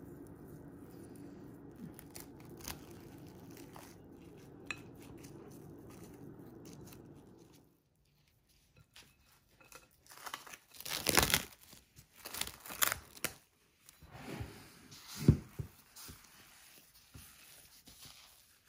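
A steady low hum with a few soft clicks, then from about ten seconds in a clear plastic disposable glove crinkling loudly in irregular bursts as the gloved hand works sticky dough in a glass bowl.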